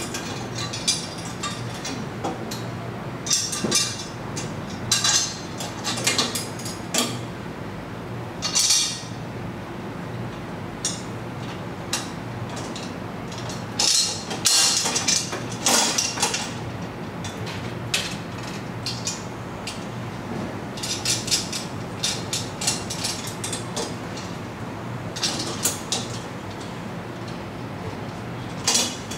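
Stainless steel exhaust pipes, flanges and clamp hardware clinking and scraping as they are fitted together by hand: irregular metallic clicks and rattles, busiest around the middle, over a steady low hum.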